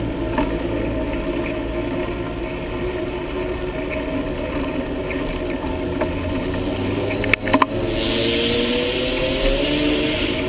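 Wind and road rumble on a helmet-mounted GoPro while cycling. About seven and a half seconds in there are a few sharp clicks. In the last couple of seconds a hiss joins in with a faint rising engine note, like a motor vehicle passing.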